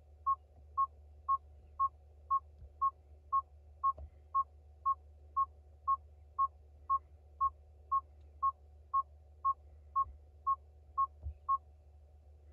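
Tata Harrier's cabin warning beeper sounding a steady high beep about twice a second, stopping shortly before the screen leaves the reverse-camera view; a low steady hum runs underneath.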